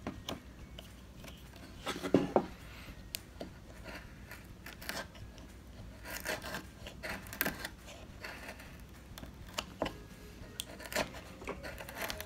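Carving knife cutting into a small wooden blank by hand, making stop cuts and slicing off shavings: irregular short scrapes and clicks, loudest around two seconds in.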